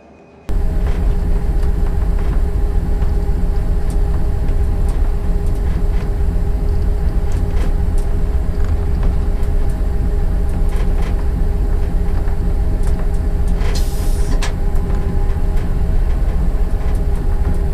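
Class 205 'Thumper' diesel-electric multiple unit on the move, heard from inside its cab. Its English Electric four-cylinder diesel engine gives a loud, steady drone with a low hum, and there are scattered light clicks and rattles. A brief hiss comes about fourteen seconds in.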